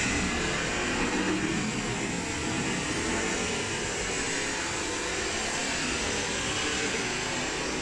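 Steady rush of fast-flowing river water, with a swimming dog splashing and churning the water.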